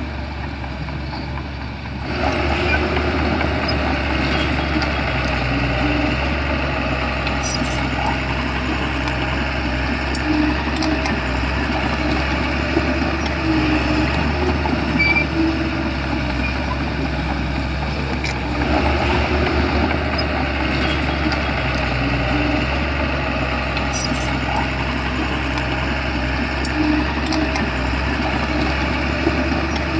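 Shantui bulldozer's diesel engine running steadily, getting louder about two seconds in, with a couple of brief sharp clicks.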